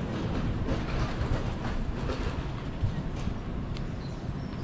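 A JR Freight container train rolling past the platform: a steady rumble of the wagons, with scattered clicks as the wheels cross rail joints.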